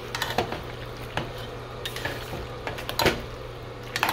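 A utensil stirring thick, creamy bow-tie pasta in a stainless steel saucepan, with irregular scrapes and clicks against the pan. The sharpest knocks come about three seconds in and just before four seconds.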